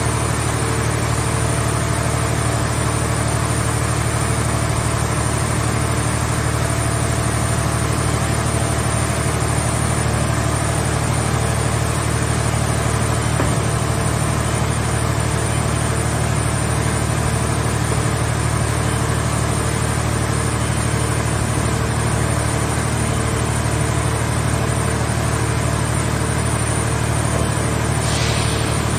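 Hydraulic car-shell baler's power unit running steadily with an even low hum, with a brief hiss near the end.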